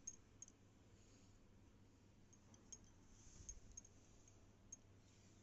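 Near silence with a low hum and a few faint, short clicks scattered through it.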